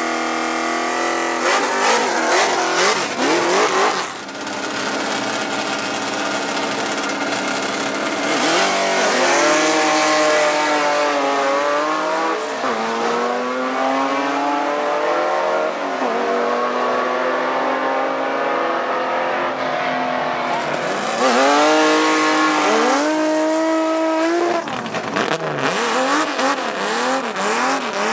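Drag-racing car engines at high revs, accelerating hard with the pitch climbing and dropping back at each gear change. Near the end come quick repeated rev blips.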